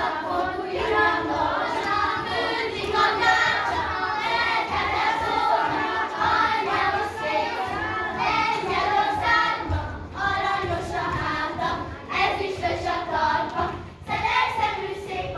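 A group of children singing a Hungarian folk song together in chorus.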